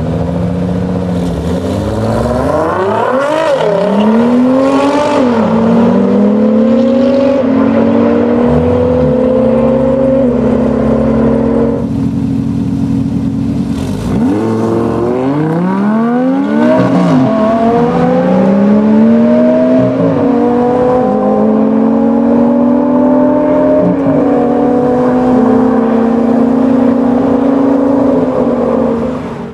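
Two standing-start drag runs, each with a Porsche 911 GT2's twin-turbo flat-six on a QuickSilver exhaust and a rival car accelerating hard side by side. The revs climb and drop back at each upshift, about four shifts per run. The first run is against a Nissan GT-R; the second starts about 14 seconds in, against an Audi R8 V10.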